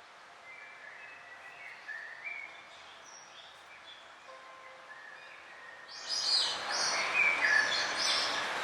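Songbirds singing and chirping: faint, scattered phrases at first, then about six seconds in much louder, denser song over a steady hiss of background noise.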